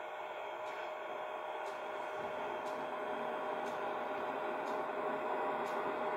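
Model ALe 803 electric railcar under way, its sound decoder playing the running sound of the electric railcar. The sound is a steady electric hum with one held tone, growing slightly louder, with faint ticks about once a second.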